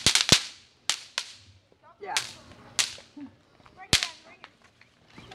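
Bang snaps (snap-pop poppers) thrown onto a concrete driveway, cracking sharply one after another: a quick burst of three near the start, then single and paired pops every second or so.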